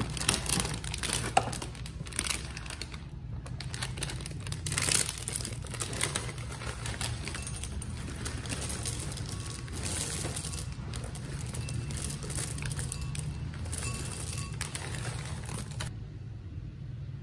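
Foil inner bag of a cereal box crinkling as it is opened and tipped, with chocolate cereal pieces pouring into a ceramic bowl. The rustling stops shortly before the end, leaving a steady low hum underneath.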